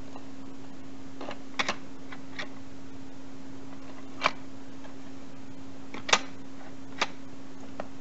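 Hard plastic toy-playset pieces giving a handful of sharp, irregular clicks and knocks as they are handled and pressed back into place on the TrackMaster Demolition at the Docks warehouse, the loudest about six seconds in.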